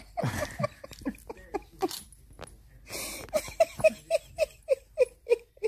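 A person laughing in short breathy bursts that settle into a quick run of about three a second in the second half.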